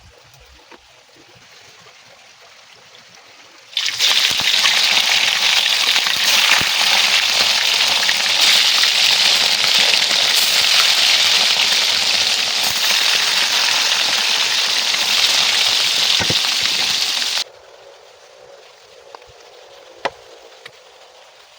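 Water running steadily, starting suddenly about four seconds in and cutting off suddenly about thirteen seconds later.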